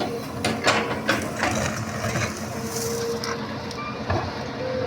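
Hitachi hydraulic excavator's diesel engine running steadily with a steady whine, broken by several sharp clanks and knocks in the first second and a half and another about four seconds in.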